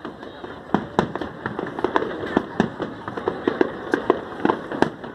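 Fireworks display: a rapid, irregular string of sharp bangs and pops, several a second.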